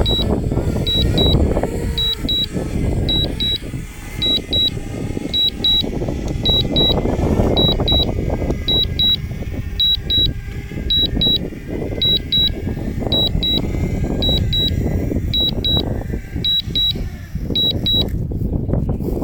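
Return-to-home alert for a DJI Mavic Mini: short high double beeps, about one pair a second, from the drone's remote controller, stopping near the end. Under them, wind rumbles loudly on the microphone.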